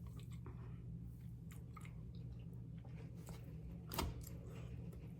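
A person chewing a mouthful of food close to the microphone, with small wet mouth clicks and one sharper click about four seconds in, over a steady low hum.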